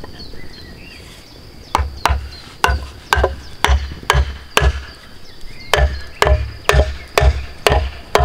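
A wooden mallet knocking wooden wedges into a log to split it lengthwise, about two sharp blows a second, in two runs with a short pause near the middle.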